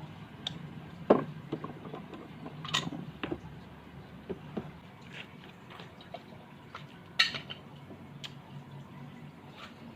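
A few scattered sharp knocks and clinks, as of tools and small hardware being handled and set down on a workbench; the loudest comes about a second in, with others near three and seven seconds.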